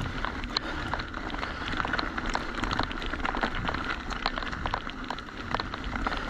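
Orbea Occam full-suspension mountain bike rolling over a rough dirt trail: tyres crunching over stones with many irregular clicks and rattles from the bike, over a low rumble.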